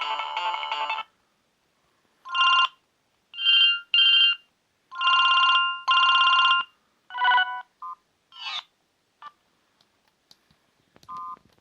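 Siemens A60 mobile phone playing its preloaded tones. The end of one polyphonic ringtone melody stops about a second in, then comes a short tune of separate electronic beeps. A few faint clicks and one short beep come near the end.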